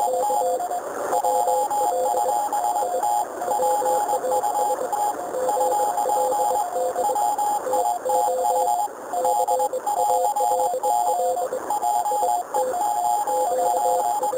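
Morse code (CW) heard on a receiver tuned to the 40-meter amateur band: several stations keying at once at different pitches, their dots and dashes overlapping, over a steady hiss of band noise.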